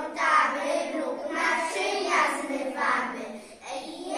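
Young preschool children singing in short phrases, with brief breaks between them.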